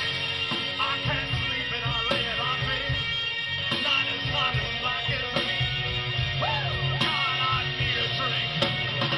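Live rock band playing drums, electric guitar and bass, with a male lead singer singing over it.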